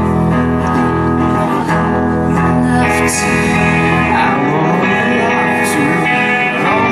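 Live band playing: electric guitars and keyboard, with a singer's voice coming in about four seconds in.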